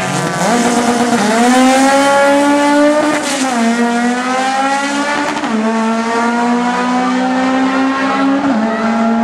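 Drag-racing cars launching side by side and accelerating down the strip. The loudest engine's pitch climbs steadily through each gear and drops at each upshift: about three seconds in, again about five and a half seconds in, and near the end.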